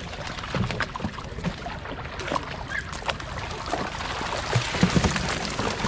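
Shallow pond water splashing and sloshing as a crowd of African catfish thrash inside a seine net and are scooped into plastic tubs, with many small slaps and knocks. The splashing grows louder and busier in the second half.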